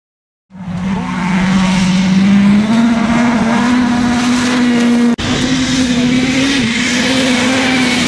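World Rally Cars' 1.6-litre turbocharged four-cylinder engines held at high revs on a gravel stage: first the Toyota Yaris WRC, then, after an abrupt cut about five seconds in, the Citroën C3 WRC, each giving a loud, steady engine note over the hiss of tyres on gravel. The sound starts suddenly about half a second in.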